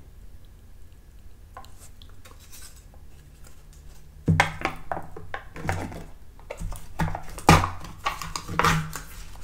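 A plastic dairy-snack cup being opened by hand: a run of sharp, irregular clicks and crinkles from the lid being pried and peeled off, with the cup knocking on the table. It starts about four seconds in, after a quiet start.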